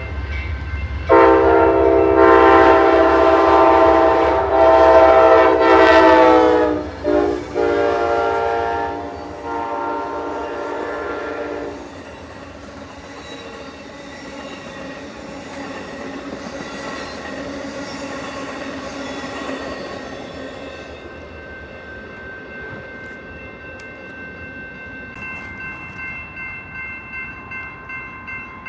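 A passing train's horn sounds in long blasts, broken by a short blast about seven seconds in, over the deep rumble of the locomotive. The horn and rumble fade by about twelve seconds. Later a fainter ringing tone sets in, pulsing steadily near the end.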